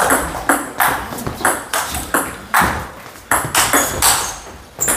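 Table tennis rally: the ball clicking sharply off the paddles and the table in a quick exchange, about two to three hits a second at an uneven pace.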